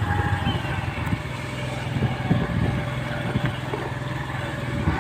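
A motor vehicle's engine running steadily with road noise, as the vehicle travels along.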